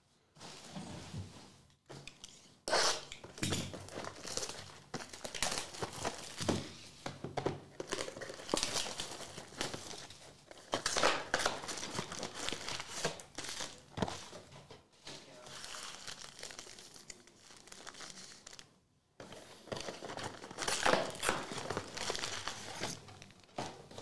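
Cardboard trading-card boxes torn open by hand and their foil card packs handled: irregular crinkling and tearing in bursts, with short lulls about 2 seconds in and near the end.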